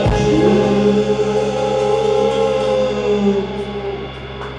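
A live band's closing chord held and ringing out after a final hit: steady sustained notes from the instruments and voices, fading away in the last second or so.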